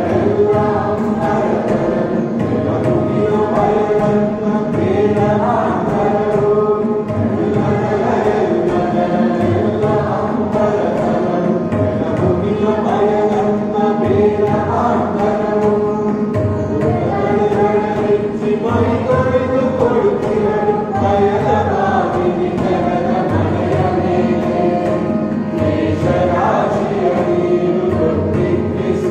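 A group of voices singing together in unison, a slow chant-like song over a steady drone.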